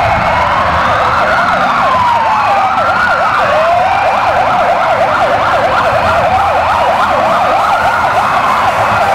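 Several police sirens sounding together: a slow wail rising and falling every second or two, overlapped by a fast yelp.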